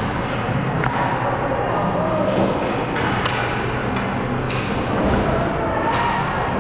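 Deck hockey play: hockey sticks clacking and knocking, a dozen or so sharp hits and thuds at uneven intervals, with faint voices behind.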